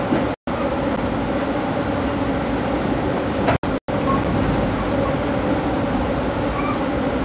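Steady running rumble of a passenger train heard from inside the carriage, with a low, even drone under it. It drops out to dead silence for split seconds just after the start and again just past halfway, where the camcorder recording cuts.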